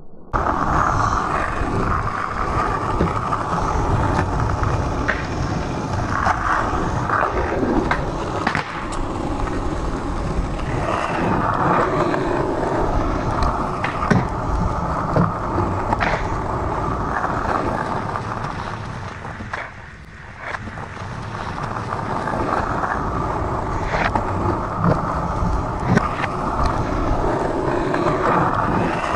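Skateboard wheels rolling on asphalt, a steady rolling noise with occasional sharp clacks every few seconds; the rolling fades briefly about two-thirds of the way through, then picks up again.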